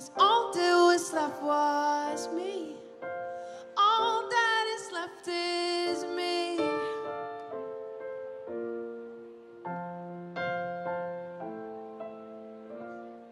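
Live pop ballad: a woman sings the last lines over stage-keyboard piano chords. Her voice stops about six seconds in, and the piano plays the closing chords alone, each one dying away, fading toward the end of the song.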